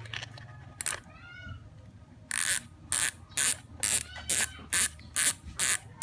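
Speedone Soldier six-pawl bicycle hub's freehub ratcheting: eight short, loud bursts of rapid pawl clicking, about two a second, after a single click near the start.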